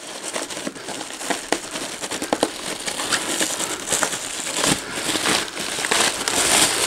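Plastic bag of foam packing filler crinkling and rustling as it is worked loose and pulled out of a PC case, with many small irregular crackles, a little busier in the second half.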